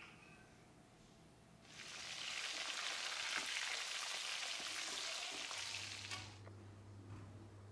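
Spice-coated small whole fish frying in hot oil in a pan, sizzling with dense crackling. It starts about two seconds in and cuts off suddenly about six seconds in.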